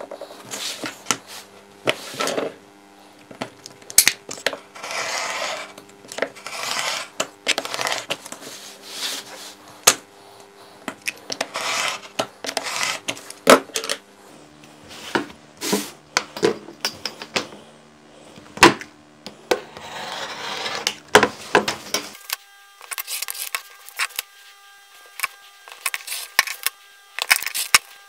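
A blade drawn along a steel ruler, slicing through thick printed card in strokes of about a second each, between sharp clicks and knocks as the ruler and tools are set down on the cutting mat. A faint steady hum lies underneath.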